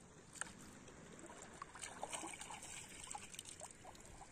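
Faint trickling and light splashing of shallow seawater, with small scattered ticks and clicks.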